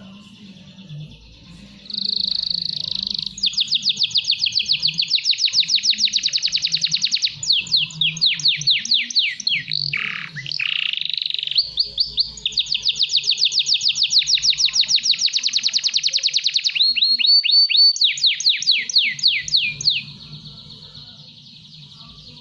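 Young male domestic canary singing a long song of rapid trills, phrase after phrase at different pitches, with a few falling sweeps in the middle. The song starts about two seconds in and stops about two seconds before the end. It is a young male at the stage of starting to sing steadily and at length (gacor).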